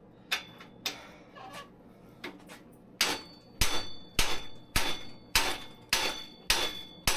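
Hammer striking metal: a few scattered knocks, then a steady run of blows a little under twice a second, each leaving a short metallic ring. A stuck part on a 1993 GT Talera bicycle is being hammered to free it.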